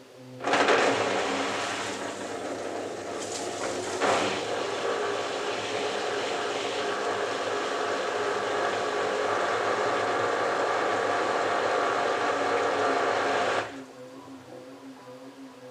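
Front-loading washing machine's drain pump running, pumping water out during the final spin stage. It starts suddenly about half a second in, swells briefly about four seconds in and cuts off abruptly near the end. Under it is the low hum of the drum motor turning the drum slowly.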